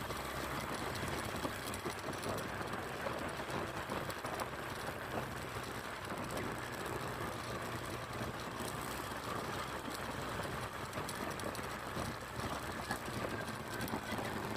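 Small vehicle engine running steadily at an even cruising pace, with road and wind noise from the ride.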